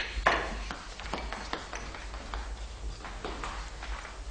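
Light footsteps and scattered small clicks and taps as a person walks off across a room, with a short rustle about a third of a second in, over a low steady hum.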